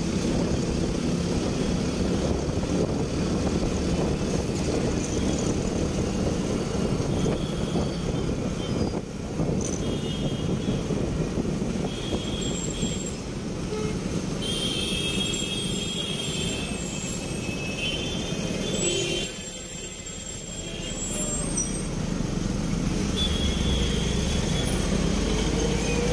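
Motorcycle riding through city traffic: the bike's engine and rushing wind, with the traffic around it. Horns sound several times through the second half.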